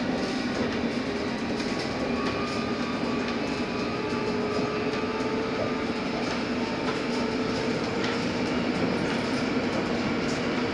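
London Underground S8 Stock train running, heard from inside the carriage: a steady rumble of wheels on rail with a motor whine that slowly rises in pitch as the train gathers speed, and faint clicks from the track joints.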